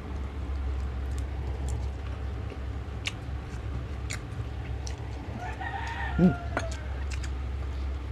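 Soft clicks of hands picking at food and chewing over a steady low hum. About six seconds in comes one call about a second long, falling in pitch at its end; it is the loudest sound here.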